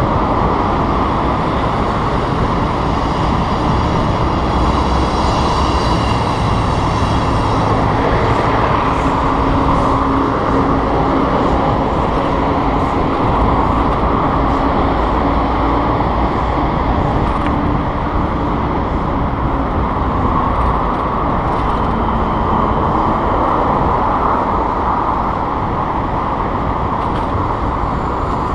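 Steady rush of riding wind on a bicycle-mounted camera's microphone, mixed with the noise of surrounding city street traffic. A faint steady engine hum joins in from about 8 to 20 seconds in.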